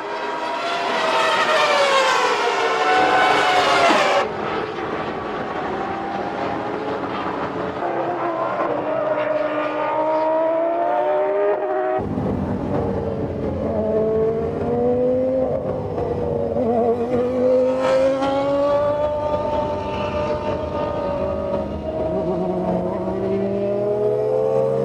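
Formula One cars' engines at racing speed, their high pitch rising and falling as they accelerate and shift through the gears, with sudden changes in the sound about four and twelve seconds in.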